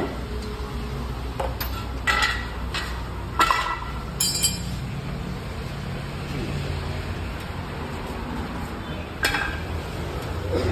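Hand tools clinking and knocking against metal on a car's underside, a few sharp clanks spread out over a steady low shop hum.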